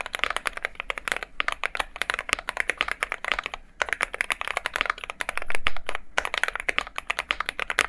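Fast typing on an Akko MonsGeek M1 mechanical keyboard fitted with Gateron G Pro 3.0 Yellow linear switches: a dense run of key clacks, with a brief pause a little under four seconds in and a louder cluster of strokes a little past halfway.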